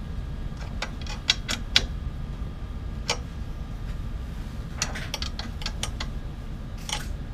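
Small steel hand tools, a hex key and a wrench, clicking and tapping against the metal wheel bracket of a 3D printer's aluminium bed frame while an eccentric wheel is being adjusted. The clicks are sharp and irregular, in small clusters, over a steady low hum.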